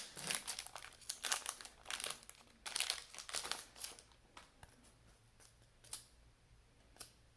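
A basketball trading-card pack wrapper being crinkled and torn open, with dense crackling for about four seconds, then a few scattered faint clicks.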